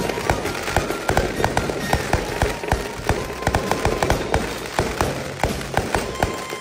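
Aerial fireworks going off overhead in a rapid, irregular string of sharp bangs and crackles, several a second.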